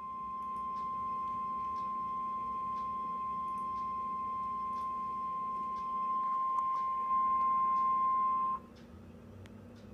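NOAA Weather Radio 1050 Hz warning alarm tone, a single steady high-pitched beep held for about nine seconds. It is the signal that an emergency alert is about to be read, and it cuts off abruptly, leaving the faint hum and hiss of the radio.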